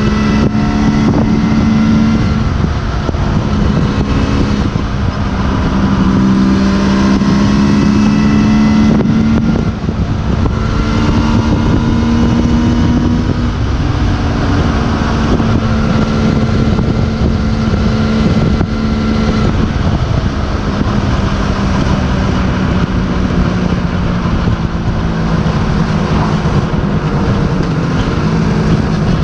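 Suzuki GT750 two-stroke triple motorcycle engine running at road speed, its note rising and falling slightly with the throttle, over a steady rush of wind and road noise from riding.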